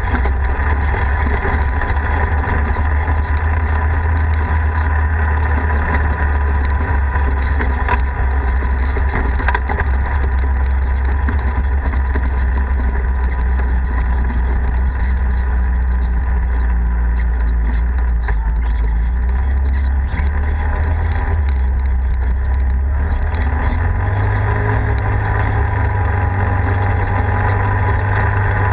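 Polaris RZR side-by-side's engine running steadily while driving a dirt road, with tyre and road noise beneath. About three-quarters of the way through, the engine note steps up in pitch.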